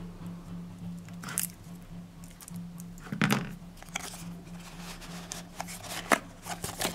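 Cardboard packaging being handled: scattered rustles, scrapes and light clicks of a white card box and its insert, with a louder cluster about three seconds in, over a steady low hum.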